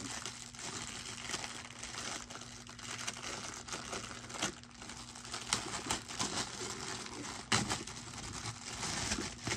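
Thin clear plastic bag crinkling and crackling as it is worked off a stack of plastic food storage containers, with a few sharper snaps along the way.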